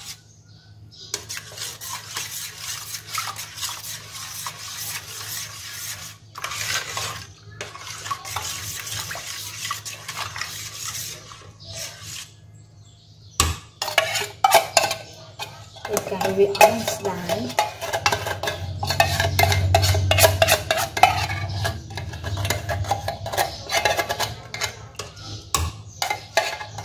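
Metal spoon scraping thick condensed milk out of a tin can over a steel pot, with repeated scrapes and clinks of spoon on can and pot rim. It gets louder and busier about halfway through, starting with a sharp knock.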